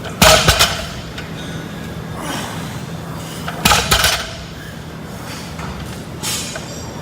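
Two short bursts of sharp knocks or bangs, one just after the start and another about three and a half seconds later, with a fainter knock near the end, over a steady low hum.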